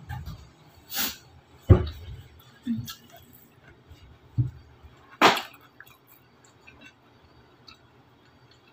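Eating by hand from a plate at a table: a few separate low knocks and bumps of hand and plate on the tabletop, with two short, sharper noisy sounds about a second in and about five seconds in.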